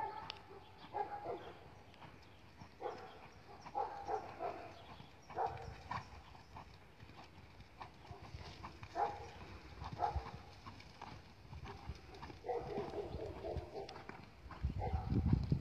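A ridden horse's hooves trotting on sand arena footing, giving muffled, uneven hoofbeats. Near the end a louder low rumble rises.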